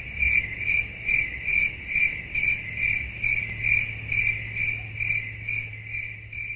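Cricket chirping used as a comedy sound effect for an awkward silence: a high, even chirp repeating about two and a half times a second over a low steady hum.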